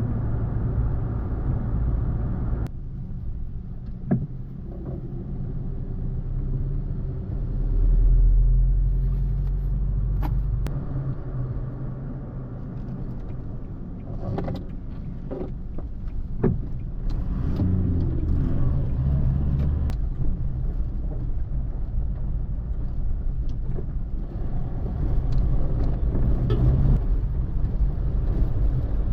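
A car driving, with a steady low engine and road rumble, a few sharp knocks and a louder low swell a few seconds in.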